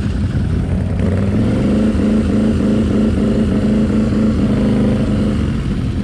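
ATV engine running at steady revs, an even drone with no break.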